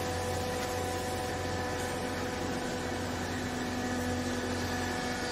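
Hydraulic power unit of a vertical clothes baler, electric motor and pump, running with a steady hum; a second, lower tone joins about two seconds in.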